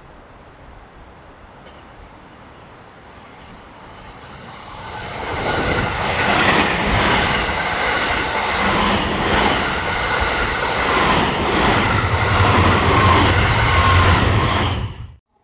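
A train running along the rails, building up from about five seconds in to a loud, steady run with wheel clatter over the rail joints, then cut off abruptly near the end.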